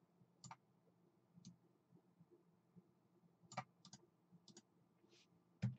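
Faint computer mouse clicks, a few scattered single clicks with a quick run of two or three about three and a half seconds in, against near silence.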